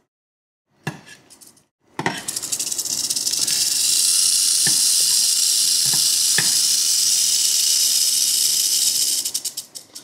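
Mojave rattlesnake rattling its tail, a defensive warning while it is being handled: a short buzz about a second in, then a loud, steady buzz from about two seconds in that sputters out near the end. A few sharp clicks sound over the buzz.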